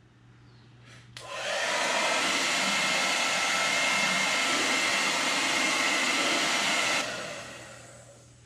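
Handheld hair dryer switched on about a second in and blowing steadily with a faint whine. It is switched off near the end, and the sound fades as the motor spins down.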